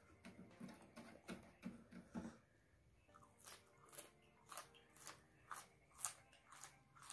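Close-up chewing of raw red chili peppers: soft low mouth sounds at first, then from about three seconds in crisp, wet crunches about twice a second as the chilies are bitten and chewed.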